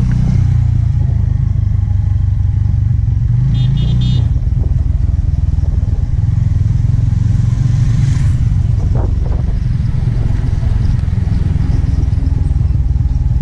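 Motorcycle engine running steadily at low speed, heard from the rider's seat. About four seconds in there are three short high-pitched tones.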